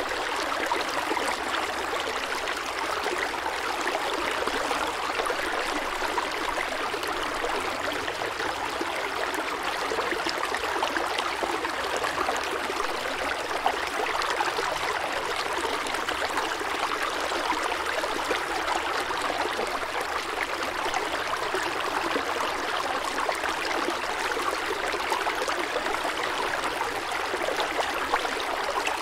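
Steady rushing water, an even sound with no rise and fall.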